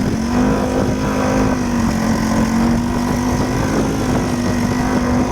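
An engine running at a steady speed, a constant low hum with rumble beneath it.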